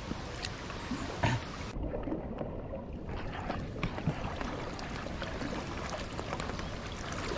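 Water sloshing and splashing steadily as people wade through a flooded paddy field.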